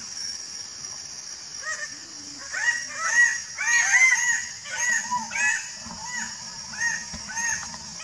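Bird-of-paradise calling: a rapid series of short, loud calls, each rising then falling in pitch, about two or three a second. The calls begin about two seconds in and are loudest around the middle.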